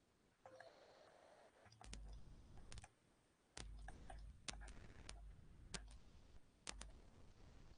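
Near silence with faint, irregular clicks scattered through, some with a low dull thump under them.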